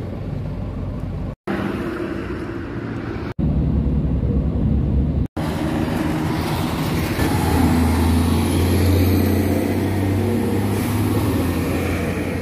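Roadside traffic in short spliced clips: engines of passing trucks and a passenger jeepney. The last and longest clip holds a vehicle passing close, with a low engine drone that swells and holds steady before fading.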